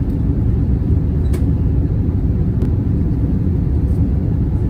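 Airliner cabin noise in flight: a steady low rumble of engines and airflow, with a couple of faint ticks about a second and a half apart.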